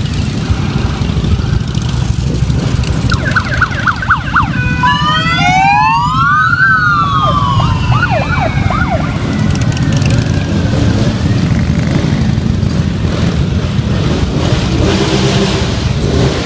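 Many Harley-Davidson V-twin motorcycles rumbling past at low speed in a loud, steady drone. From about three to nine seconds in, a police siren sounds on top: quick yelp sweeps, one slow wail rising and falling, then more yelps.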